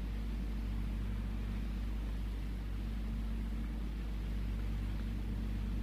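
Steady low electrical hum with an even background hiss from the recording itself, with no other sound.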